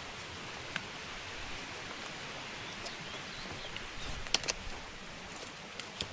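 Steady outdoor hiss with a few short, sharp ticks, a pair of them about four seconds in.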